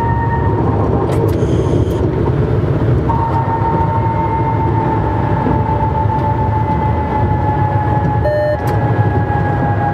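TGV cab noise: the running train's steady low rumble, with a steady whine that sets in about three seconds in and slowly sinks in pitch, and a few brief clicks.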